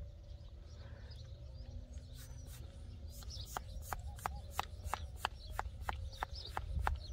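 Mini hand pump putting a little air into a bicycle inner tube before it is fitted: short, even strokes about three a second, starting about three seconds in, over a low steady rumble.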